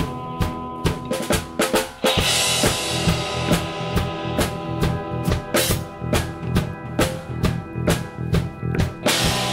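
Live rock band playing an instrumental passage: a drum kit keeps a steady beat on kick and snare under electric guitars. A cymbal crashes about two seconds in and again near the end.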